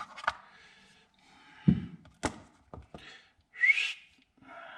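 Light clicks and knocks of small parts being handled while rubber O-rings are fitted onto fuel injectors, with a short rising whistle-like squeak about three and a half seconds in.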